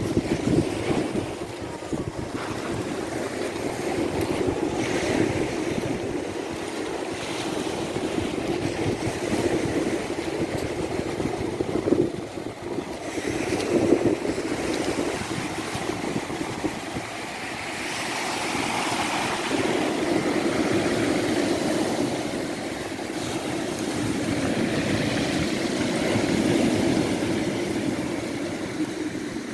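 Rain-swollen river churning into the sea where it meets the surf, with waves breaking on a pebble beach: a steady rush of water that swells and eases as the waves come in.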